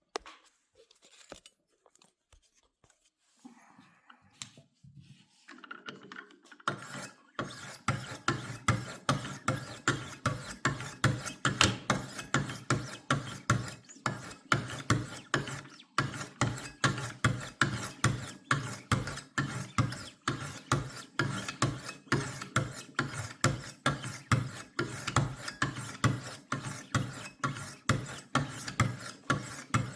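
1200-grit ceramic stones of a Wicked Edge WE60 guided sharpener stroked in turn along a kitchen knife's edge: short rasping rubs, about three a second, starting after a few quiet seconds. This is the polishing stage of the sharpening.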